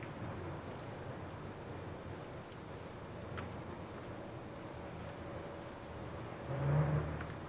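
Quiet outdoor night-time ambience, a steady low hiss, with a faint click partway through and a short, louder low sound near the end.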